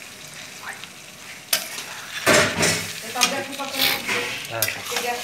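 Long metal spatula stirring and scraping chicken in thick masala gravy around a metal kadai, the curry sizzling as it fries. A sharp clink of the spatula on the pan comes about a second and a half in, and the stirring gets louder and more vigorous from about two seconds on.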